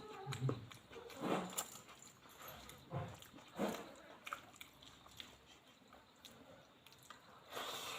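A person eating rice and dal close to the microphone: a few short bites and chewing sounds with scattered small clicks.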